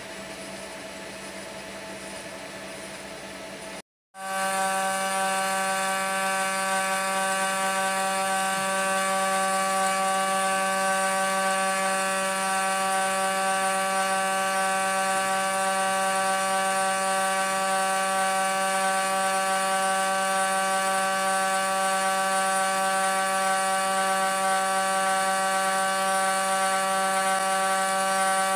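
CNC milling spindle running while its bit cuts a flat sheet, a steady machine whine made of several even tones. The sound drops out for a moment about four seconds in and comes back louder, with the footage sped up to double speed.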